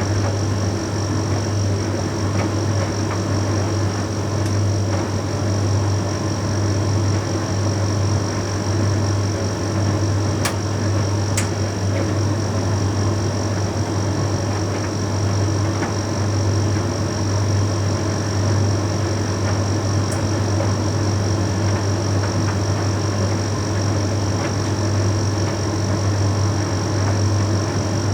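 Bosch Series 6 heat pump tumble dryer running mid-cycle on its Shirts programme: a steady hum and whir, with a couple of faint ticks about ten seconds in.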